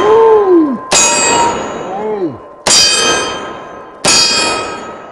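Magnum revolver shots about one and a half seconds apart, three in all, each followed by the ringing clang of a steel plate target being hit.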